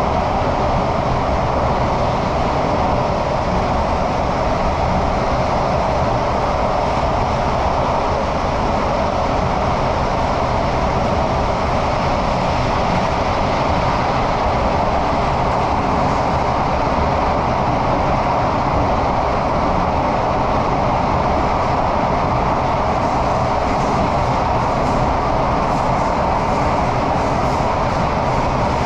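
Singapore MRT train running at speed through an underground tunnel, heard from inside the carriage: a loud, steady roar of wheels on the rails and air in the tunnel, unchanging throughout.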